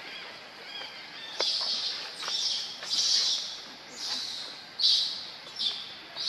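About six short, high-pitched animal calls, roughly one a second, starting a little over a second in.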